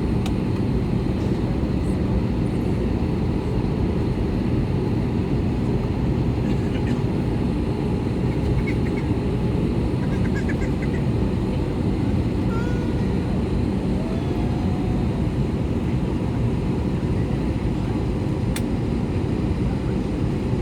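Steady low roar of an Airbus A321 cabin, airflow and CFM56 engine noise heard from a seat by the wing. A few faint short chirps midway, and a single click near the end.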